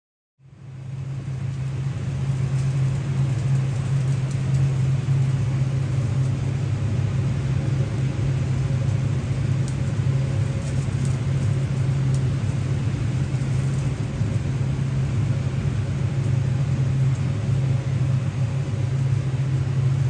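Charcoal fire burning under a roasting suckling pig: a steady low roar that fades in about a second in and holds, with a few faint crackles.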